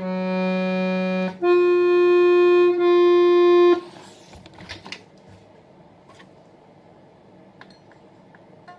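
Accordion reeds sounding held single notes as the bellows are worked, test notes during tuning: a low note for about a second, then a higher note, briefly re-sounded, for about two seconds. The notes stop about four seconds in, followed by faint clicks and light knocks as the instrument is handled.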